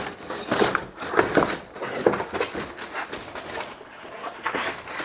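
Bike packaging being handled: irregular rustling and crinkling with light knocks and scrapes.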